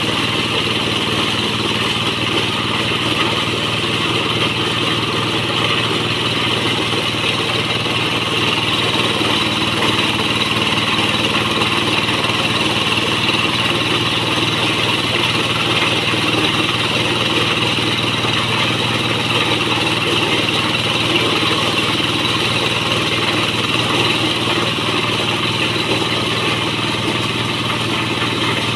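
Corn sheller powered by a Kubota stationary diesel engine running steadily under load, with a continuous rattling hiss as cobs are fed through the threshing drum and shelled.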